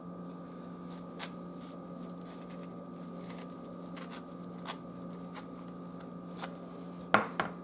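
Knife working on an avocado: a few sparse light clicks and taps as it is cut open, over a steady low hum.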